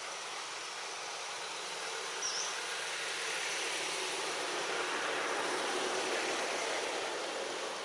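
Steady outdoor background hiss without speech that grows a little louder through the middle, with one short high chirp about two seconds in.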